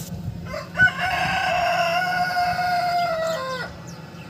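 A rooster crowing once, a single call about three seconds long that drops in pitch at the end.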